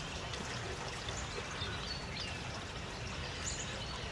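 Steady rushing outdoor noise with a few faint, short bird chirps.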